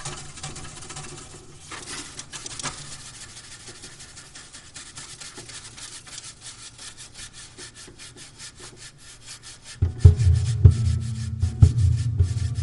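Grand piano played from inside the case: a fast, even scraping and rubbing on its strings, then about ten seconds in, loud low bass notes ring out.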